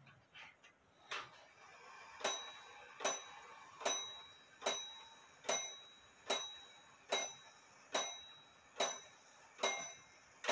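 Double fusee drop dial clock striking eleven on its gong: eleven even strokes about 0.8 seconds apart, each ringing out briefly, after a faint click about a second in. The strike is counting the hour as the hands are turned, to show where the hour hand belongs.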